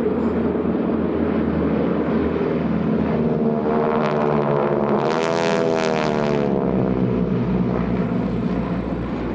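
Five North American SNJ/T-6 Texans, each with a Pratt & Whitney R-1340 nine-cylinder radial engine, flying over in formation: a steady engine drone that swells to a loud propeller rasp as they pass overhead about five to six seconds in, their pitch bending as they go by, then eases off near the end.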